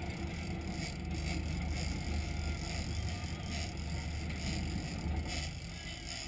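Sportfishing boat's engines running with a steady low rumble, with water rushing and splashing past the hull.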